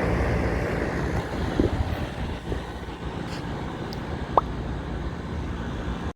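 Air-conditioner condenser unit running, its fan motor rewired and now turning the right way: a steady rush of air over a low hum. Two brief clicks, about one and a half and four and a half seconds in.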